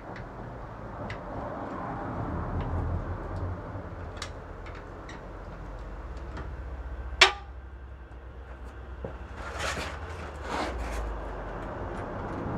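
Hand tools working a car's wheel bolts while the wheel is readied to come off: scattered light metallic ticks, one sharp metallic clank about seven seconds in, then a spell of scraping and rattling near the end around the floor jack.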